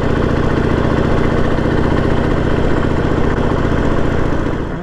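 Harley-Davidson Sportster 1200's air-cooled V-twin engine running steadily, its level dropping away at the very end.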